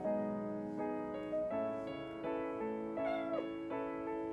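Gentle piano background music; about three seconds in, a kitten gives one short, falling meow.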